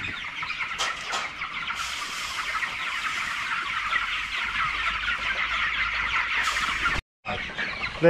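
A flock of young broiler chickens, about four weeks old, cheeping and clucking continuously, with a brief cut-out near the end.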